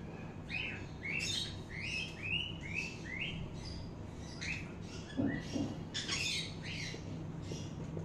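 Small pet parrots chirping: a quick run of short chirps, about two or three a second, over the first three seconds, then a few more irregular chirps in the middle.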